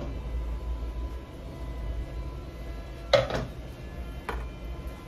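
Stainless-steel pressure cooker lid being worked off the pot and set down on a counter: a metal clank with a short ring about three seconds in, then a lighter knock about a second later, over a steady low hum.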